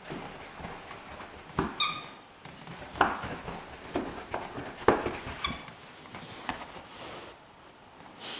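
Five-month-old English setter puppy playing with its ball on its back in its bed, making a string of short grumbling 'talking' noises, with two short high squeaks about two and five seconds in.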